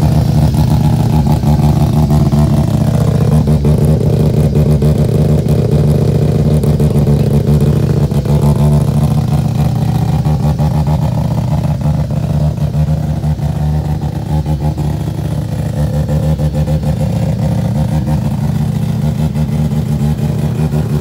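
Turbocharged Mazda 13B two-rotor rotary engine idling, a loud, steady, choppy exhaust note.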